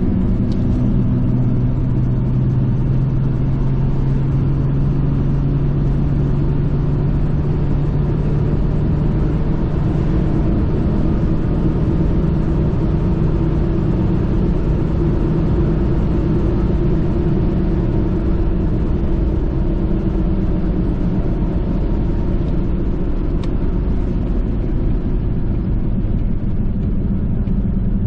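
A 1998 Jeep Cherokee XJ being driven, heard from inside the cabin: a steady engine drone and road rumble, with the engine note drifting slowly up and down.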